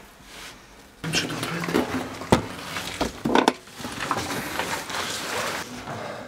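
Rustling and scraping of clothing and gear against concrete as people move through a cramped passage, with several sharp knocks; the loudest knock comes a little over two seconds in.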